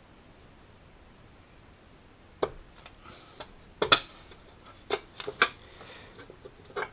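Sharp clicks and knocks of a part being worked into position by hand, about six of them, starting a couple of seconds in, with the loudest near the middle.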